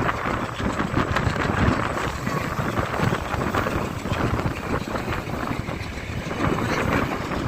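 A moving passenger train's running noise: a continuous rumble and rattle, with wind buffeting the microphone.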